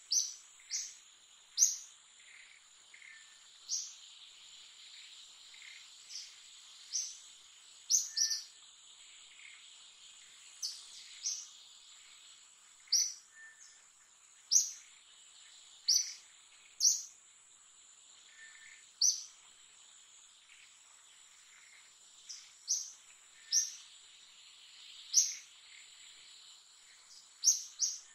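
A steady high insect drone with short, sharp bird chirps repeating every second or two.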